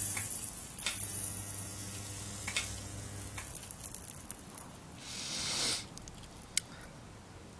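Homemade resistance soldering unit switched on at a model railway rail joint: its transformer hums while solder and flux sizzle on the rail, with sharp switch clicks. The hum comes in two spells and stops about three and a half seconds in, and a short loud hiss follows about five seconds in.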